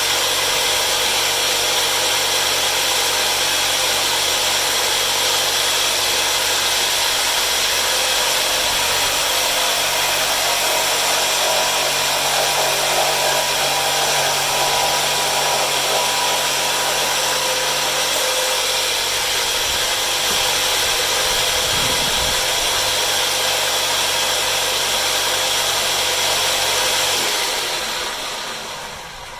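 An electric power tool's motor runs steadily at speed, then winds down and stops near the end.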